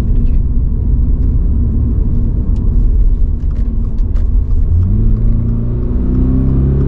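Toyota GR86 driving, heard from the cabin: steady low road and tyre rumble from its Michelin Pilot Sport 4 tyres. About five seconds in, the 2.4-litre flat-four engine note rises as the car accelerates, then climbs again near the end.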